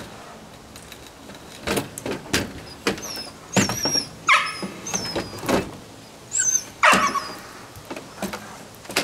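Irregular knocks and clatters from parts of a pop-up camper being worked, with a dog giving a few short high whines and barks in between.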